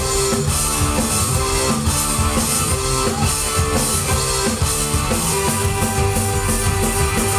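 Live rock band playing an instrumental break with electric guitar and drum kit, no vocals.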